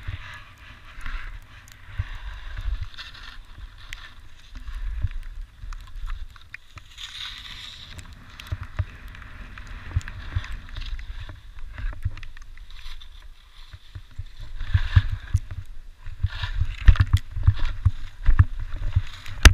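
Skis hissing and scraping over spring snow in swells, with wind buffeting the GoPro's microphone in an uneven low rumble that grows stronger in the second half.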